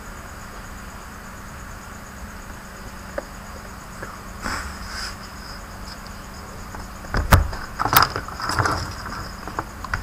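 Knocks and scrapes of a laptop being handled and laid face-down on a wooden workbench, a cluster of sharp knocks about seven to nine seconds in, over a steady faint high-pitched whine.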